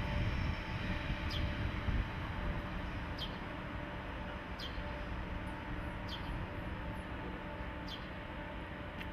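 Parked electric locomotives running their on-board equipment: a steady low hum with a few faint even tones, a little louder in the first two seconds. A short high chirp sounds every second or two over it.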